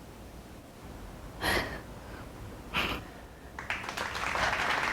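A woman's breathing: two short, sharp breaths through the nose about a second apart, then a soft rustling in the last second or so.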